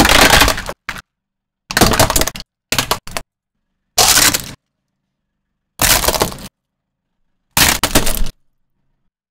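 A car tyre crushing brittle plastic objects, heard as about seven short cracking crunches, each cut off into dead silence.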